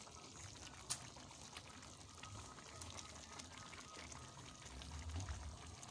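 Spicy chicken-feet sauce simmering in a metal wok: a soft, steady bubbling, with one sharp click about a second in.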